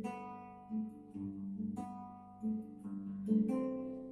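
Acoustic guitar played by hand: a chord or group of notes struck every half second to a second, each left to ring out and fade before the next.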